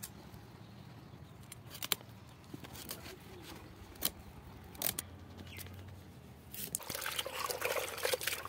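Fish being scaled against the metal blade of a boti, heard as occasional sharp scrapes and clicks. About seven seconds in, a busier sound begins: wet splashing and rubbing as the fish are washed by hand in a pot of water.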